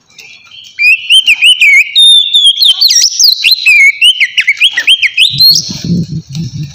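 Oriental magpie-robin (kacer) singing loud, fast, varied whistled phrases that slide up and down, starting about a second in. Near the end the song stops and a low rustling rumble comes in.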